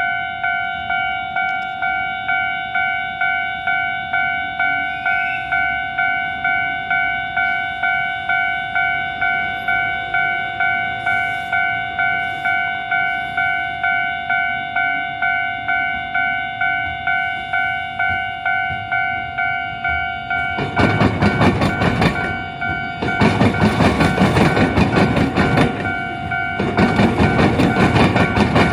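Japanese level-crossing warning bell ringing steadily, a pulsing ding about twice a second. After about twenty seconds a train rolls over the diamond crossing where the railway crosses the tram tracks, its wheels clattering loudly and rapidly over the crossing rails in groups with short gaps.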